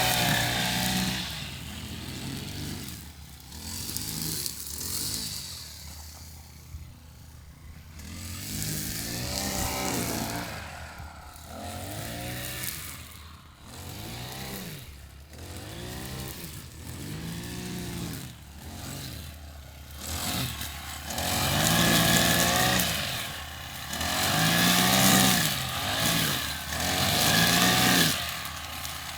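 Petrol lawnmower engine running, its pitch and loudness rising and falling over and over, about every second and a half. It is loudest near the start and through the last third.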